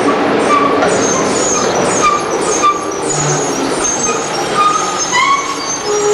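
Ikarus diesel city buses passing close by, engine and tyre noise running steadily, with short high-pitched squeaks scattered through it.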